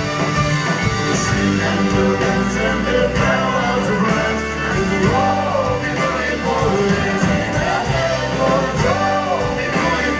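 Live band playing a sea shanty: a male lead voice sings over strummed acoustic guitar and drums.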